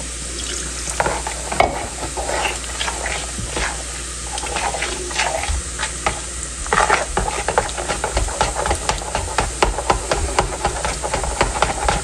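A metal spoon whisking a thick yogurt and gram-flour batter in a plastic bowl. It makes quick irregular scrapes and clicks against the bowl, which get faster and busier in the second half. Underneath runs a steady sizzling hiss from onions frying.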